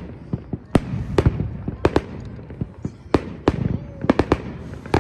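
Aerial firework shells launching and bursting overhead: a rapid, uneven string of sharp bangs, about a dozen in five seconds.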